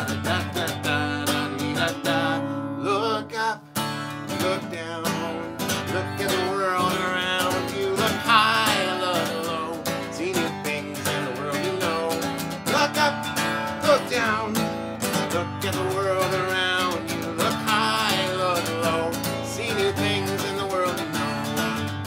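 Acoustic guitar strummed steadily, with a man singing along in places.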